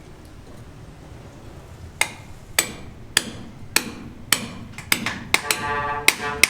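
Hammer blows struck one at a time, starting about two seconds in at roughly one every half-second or so and coming a little faster near the end.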